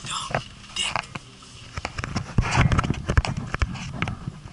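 Irregular knocks, taps and rubbing from a handheld camera being moved around inside a car cabin, with the loudest cluster of knocks past the middle.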